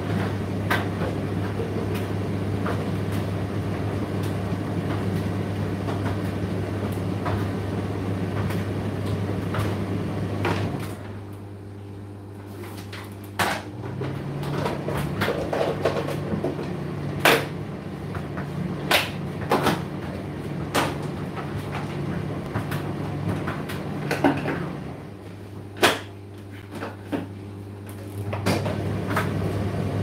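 Indesit IDC8T3 condenser tumble dryer running with a steady hum and scattered sharp clicks and knocks. About eleven seconds in the running sound drops away. A quieter, lower-pitched steady hum comes in about two seconds later and cuts off near 25 seconds. The full running sound returns near the end.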